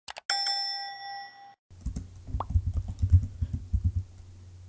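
A couple of clicks, then a short chime that fades over about a second. From just under two seconds in, rapid computer-keyboard typing follows, sped up.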